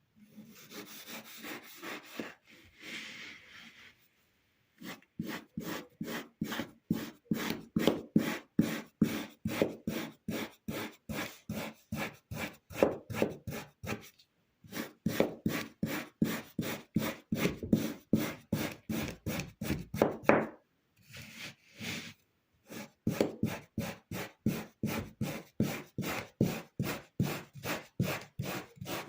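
Kinetic sand being sliced with a knife, each cut a short crunchy stroke, about three a second, in three runs broken by short pauses. It opens with a few seconds of softer scraping.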